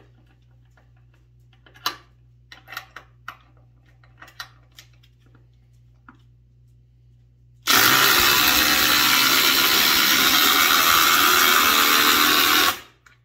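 Two impact drivers, a Milwaukee M18 Fuel Gen 3 and a DeWalt DCF840, hammering together as they drive long screws down into stacked lumber. They start a little past halfway, run for about five seconds and cut off together. Before that there are a few scattered clicks and knocks.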